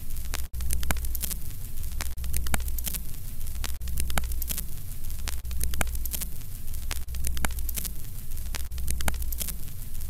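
Steady low electrical hum with frequent irregular crackles and clicks of static.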